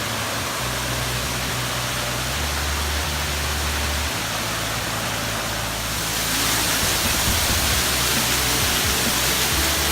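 Steady rushing roar of a waterfall, with low sustained notes of background music underneath; the rush grows louder and brighter about six seconds in.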